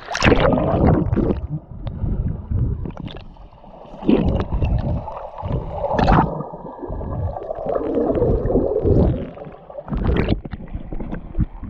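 Seawater heard underwater: muffled gurgling and bubbling, with several loud surges of splashing as a swimmer dives under.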